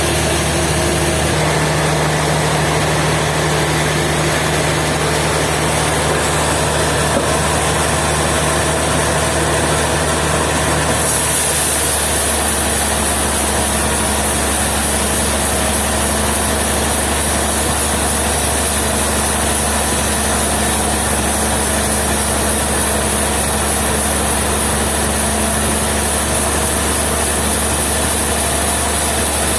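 Sawmill engine running steadily; its note shifts about eleven seconds in, then holds steady again.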